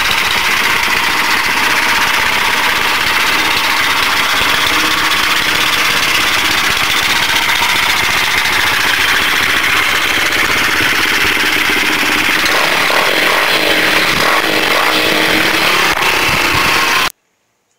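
Suzuki DR-Z110 pit bike's 110 cc four-stroke single-cylinder engine running, loud and steady, cutting off abruptly near the end.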